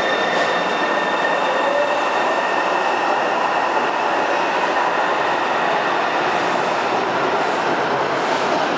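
Taipei Metro C301-type train with retrofitted propulsion running along the track: a steady loud rumble of wheels and rails, with thin high whines from the inverter, whose inverter is said to make an abnormal noise.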